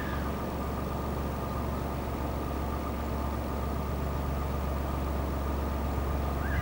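Narrowboat engine running steadily at a constant low hum, with no change in speed.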